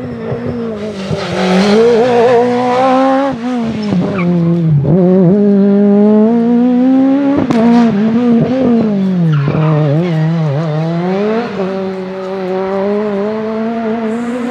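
Peugeot 306 Maxi rally car's 2.0-litre XU10J4RS four-cylinder engine at high revs, getting louder over the first two seconds as it approaches. The revs climb and break off sharply several times at gear changes, drop away about ten seconds in, then climb again and hold high.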